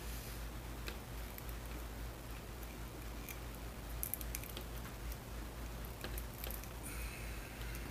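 Small plastic action-figure parts (an arm cannon and blast-effect pieces) being handled and fitted together: scattered light clicks and taps, with a short scrape near the end, over a steady low hum.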